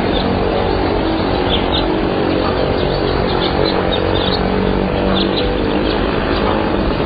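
Loud, steady outdoor rushing noise, heaviest and deepest at the low end, with a faint steady hum in it. Small birds chirp briefly now and then in the middle.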